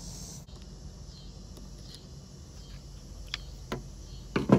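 Handling noise from working on a string trimmer: two light clicks a little after three seconds in and a louder, sharp knock near the end, over a steady low hum.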